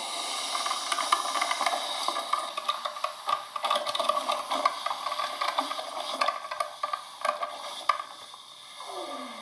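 Coffee machine running: a steady hiss with many small sputtering crackles, and a short falling tone near the end.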